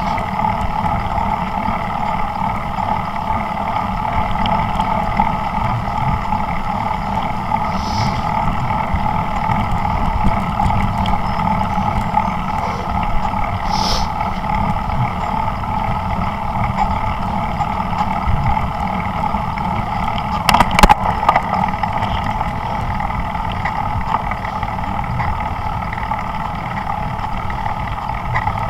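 Steady wind and road noise while riding a bicycle, a constant rumble with a few sharp knocks about 21 seconds in.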